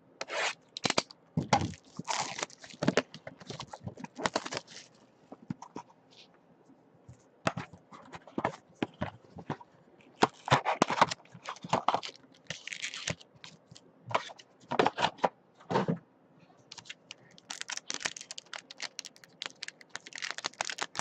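Irregular crackling and tearing of a plastic wrapper and cardboard as a sealed box of trading cards is opened.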